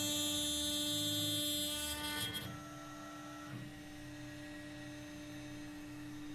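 CNC router spindle running with a steady whine while the bit cuts, alcohol spray cooling the bit. About two and a half seconds in, the brighter, louder part of the sound drops away, leaving the steady spindle tone over a low pulsing motor hum.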